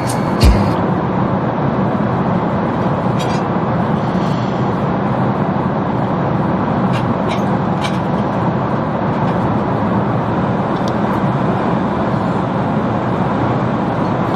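Steady roar of a jet airliner's cabin in flight, engine and airflow noise with a low hum underneath, and a few faint clicks.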